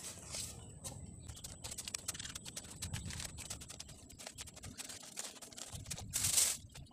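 Hands working among small soil-filled plastic polybags, the plastic and soil giving a rapid scatter of small crackles and rustles, with a louder rustle about six seconds in.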